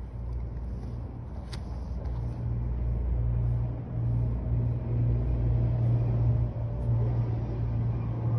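A low, steady motor-like rumble that grows louder about two seconds in, with one sharp click about one and a half seconds in.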